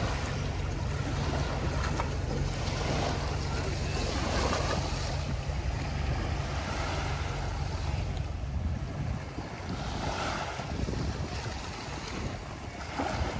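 Small waves washing onto a sandy beach, with wind buffeting the microphone as a low rumble that eases off about halfway through.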